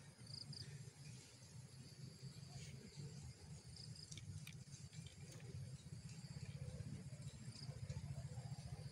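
Faint, steady insect chirping in a high band, over a low rumble.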